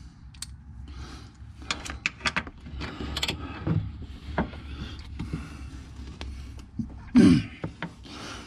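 Ratchet with a universal-joint socket turning a 13 mm upper shock-mount bolt on a C5 Corvette: irregular metallic clicks and clanks of tool on bolt, with one louder thump about seven seconds in.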